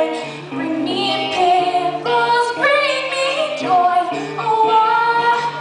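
A young woman singing a musical-theatre song in full voice, holding notes and sliding between them, over acoustic guitar accompaniment.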